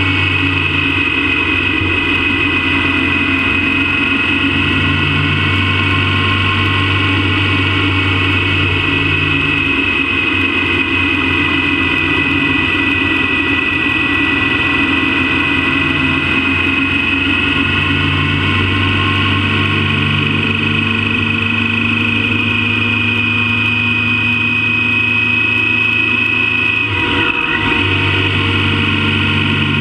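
Motorcycle engine running at a steady cruising speed while the bike rides along a road, with road and wind noise, picked up by a camera mounted low by the front wheel. The engine note holds steady throughout, with a brief break near the end.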